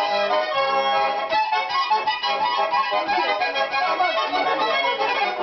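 A Russian garmon button accordion in E major playing a tune, melody over steady chords.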